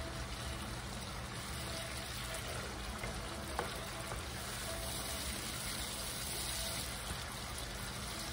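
Chopped tomatoes and onion sizzling steadily in hot oil in a skillet as a wooden spatula stirs them.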